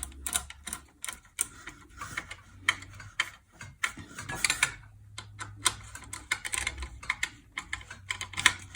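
Irregular clicks and clacks of small metal parts being handled: screws and ceiling-fan blade brackets being lined up and tightened by hand.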